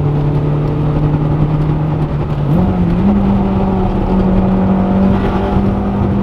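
Honda Integra Type R (DC2R) 1.8-litre four-cylinder VTEC engine heard from inside the cabin while driving, with road rumble underneath. About two and a half seconds in, the engine note climbs in pitch as the revs rise, then holds at the higher pitch.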